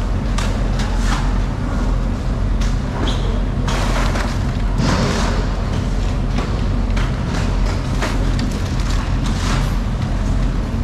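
Crushed ice being shovelled into styrofoam boxes of whole bluefin tuna, coming in scraping, rushing pours and knocks, over a steady low machine hum.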